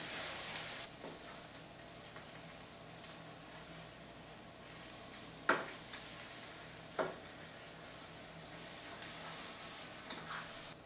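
Whole eggs poured into a hot frying pan over lightly sautéed sausages and vegetables, sizzling loudly for about the first second and then frying steadily while a wooden spoon stirs them. Three sharp clicks come through the sizzle, at about three, five and a half and seven seconds in.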